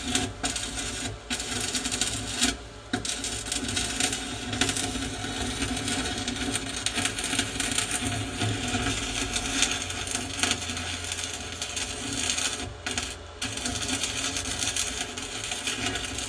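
Stick (arc) welder's arc crackling and sizzling as metal patch plates are welded on. The crackle breaks off briefly a few times and starts again.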